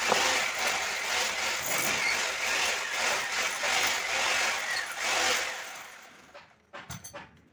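Handling noise from a plastic pillar tap and a ceramic wash basin: continuous rustling and scraping that dies away after about five seconds. It is followed near the end by a run of light, quick clicks as the tap is twisted into its hole.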